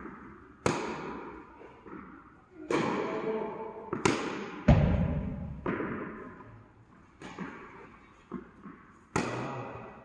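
Tennis rally on an indoor hard court: sharp racket strikes on the ball and ball bounces, about eight in all, spaced a second or so apart, each ringing out in the hall's echo. The loudest comes about four and a half seconds in, with a heavy thud.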